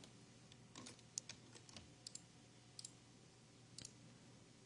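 Faint, irregular clicks of a computer mouse selecting polygons, scattered through an otherwise quiet room.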